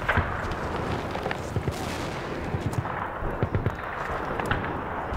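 Battlefield gunfire from a film soundtrack: irregular rifle and machine-gun shots over a continuous low rumble of shelling, with a sharp crack at the start.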